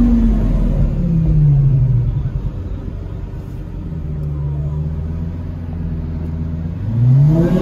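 Sports car engine slowing with its note falling, then running low and steady, then revving up sharply and accelerating near the end.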